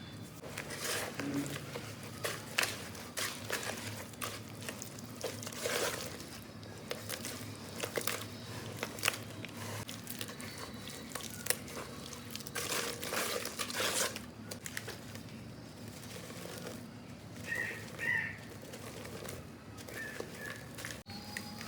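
Dry clumps of black sand crumbling and crunching: an uneven run of crisp crackles and crunches coming in bunches.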